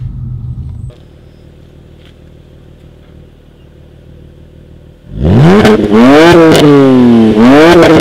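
Car noise from inside the cabin for the first second, then a BMW straight-six idling quietly, heard at its modified exhaust tips. About five seconds in it is revved hard several times, the pitch climbing and falling with each blip.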